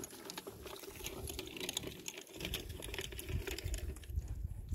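Plastic spool of 9-gauge steel wire spinning on a stick as the wire is pulled off, giving fast, irregular clicking and rattling over a steady hum. A low rumble comes in about halfway through.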